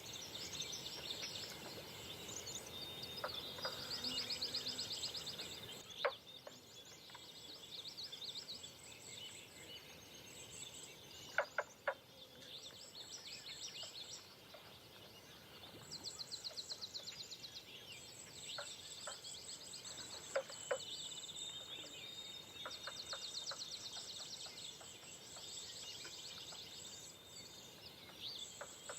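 Outdoor birdsong at daybreak: several birds singing, with rapid high trills repeating every few seconds and a few sharp, loud call notes standing out.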